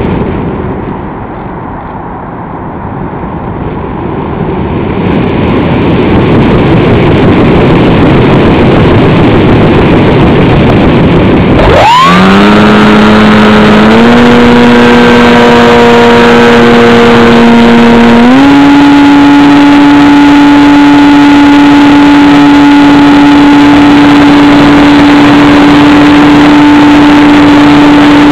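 Techone Angel EPP foam RC plane with its electric motor off: wind rushes over the onboard camera's microphone in a glide, growing louder as the plane gathers speed. About twelve seconds in, the motor and propeller spin up with a quickly rising whine, then step up in pitch twice as the throttle is advanced, settling into a steady drone.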